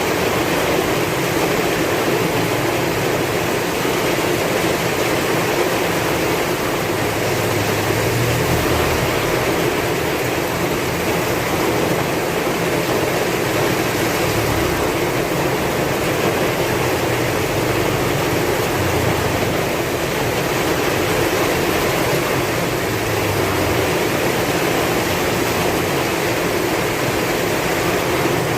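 Heavy rain falling hard in a strong wind: a dense, steady downpour hiss, with low swells of wind coming and going a few times.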